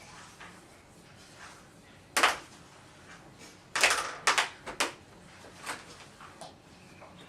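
Hard knocks and clatters of objects being handled on a surface, likely Play-Doh tools: one sharp knock about two seconds in, then a quick run of four or five knocks a little past halfway.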